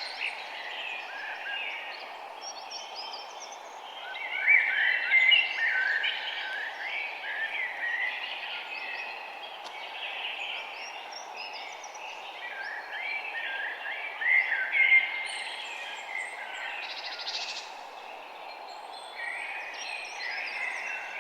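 Birds singing and chirping, many short overlapping calls at different pitches, busiest around four to seven seconds in, around thirteen to fifteen seconds in, and near the end. Under them runs a steady, even background hiss.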